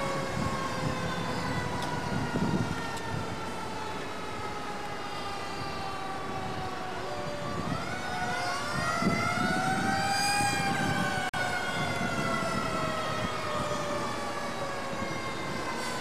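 Fire truck's mechanical siren winding down, then winding up again about halfway through and slowly coasting down, with a low rumble underneath.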